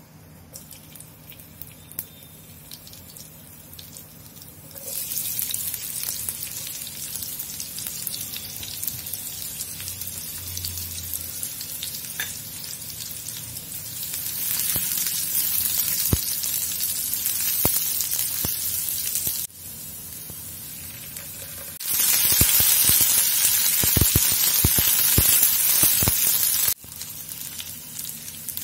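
Chopped onion frying in hot oil in a nonstick frying pan, stirred with a spatula. The oil sizzles faintly at first, and the sizzle turns loud about five seconds in, when the onion goes in. The loudness then drops and rises abruptly a few times, with some sharp knocks in the loudest stretch.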